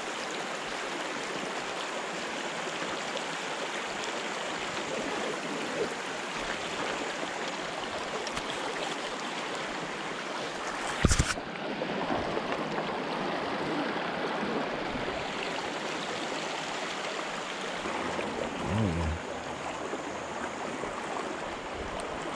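Shallow river water rushing and rippling steadily over a rocky bed, heard up close. A single sharp knock comes about halfway through.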